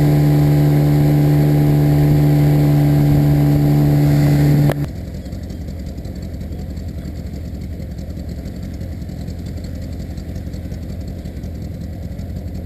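Suzuki outboard motor running steadily at speed, an even, loud drone. About five seconds in it cuts off abruptly to a much quieter, duller low rumble.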